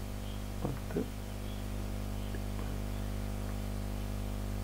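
A steady low electrical hum, with two faint brief sounds less than a second in.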